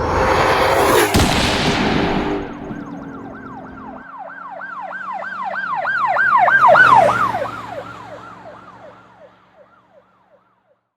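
A loud rush with a falling tone, then an emergency vehicle siren in a fast rise-and-fall yelp. The siren grows louder, drops slightly in pitch as it passes about seven seconds in, and fades away.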